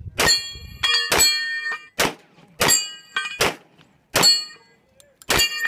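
Glock 34 9mm pistol fired about eight times in a steady string, a shot every half second to second. Most shots are followed by the high ringing clang of a steel plate target being hit.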